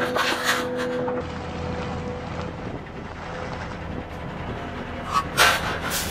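Engine sound for a toy excavator: a steady hum that shifts to a lower pitch about a second in. Short knocks of plastic toy parts come just after the start and again about five seconds in.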